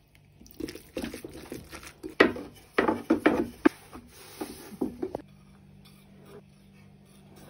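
Kitchen handling sounds: a run of short clinks and knocks of utensils and dishes against a glass bowl and wooden board, loudest about two seconds in. They stop about five seconds in, leaving a faint steady low hum.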